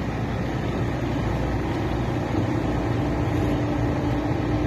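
Heavy construction machine engine running steadily with a low rumble; a steady higher hum joins about a second and a half in.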